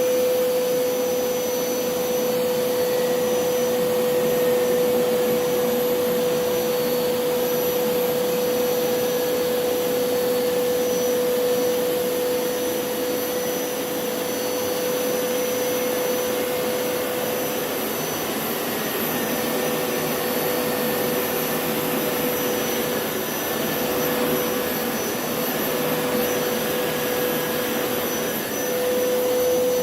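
Hoover PowerScrub Elite carpet cleaner running steadily: its motor makes a constant whine over the rush of air being drawn in, and the whine dips a little for a few seconds near the end.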